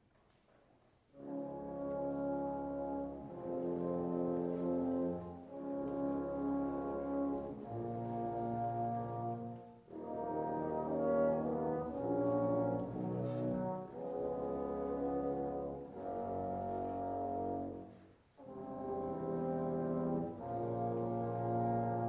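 Classical background music in slow, held chords, coming in about a second in after near silence, with brief breaks between phrases.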